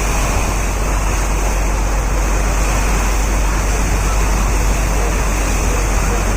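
Steady rushing of floodwater flowing across a road, with a low rumble underneath.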